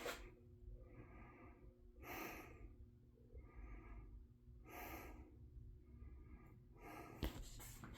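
Faint steady hum of a 1986 Homestead Universal ceiling fan motor running on low speed, under soft breathing close to the microphone, about one breath every second or so.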